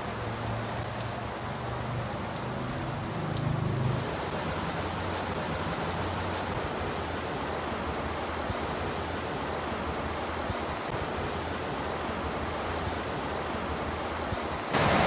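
Steady hiss of falling rain with a faint low hum beneath it.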